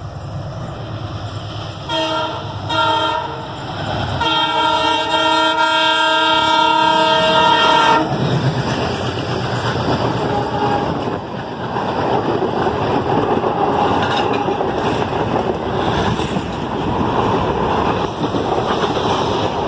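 WDM-3D diesel-electric locomotive sounding its horn: two short blasts about two seconds in, then one long blast of about four seconds. The locomotive then passes close, and the express's coaches rumble and clatter by over the rails.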